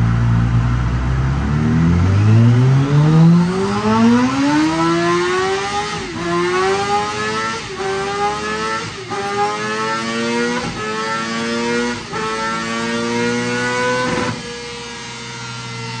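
2024 Honda CBR1000RR-R SP Fireblade's inline-four, fitted with an Akrapovic full exhaust, making a full-throttle pull on a rolling-road dyno. The revs climb steadily for about thirteen seconds with a few brief dips. Near the end the throttle shuts and the engine drops back.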